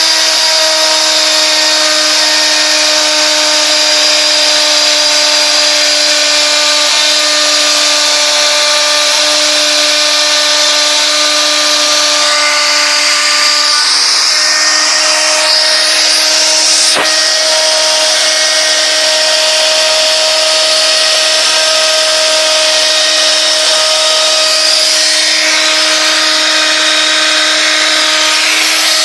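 Home-built CNC machine cutting, its spindle running at a steady pitch with a constant whine and a high hiss. The upper hiss shifts a couple of times as the cut moves on, and there is a single sharp click a little past halfway.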